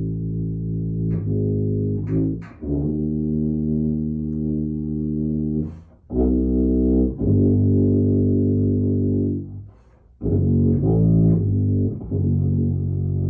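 Tuba playing slow, sustained low notes in phrases, with brief pauses between them where the sound drops out.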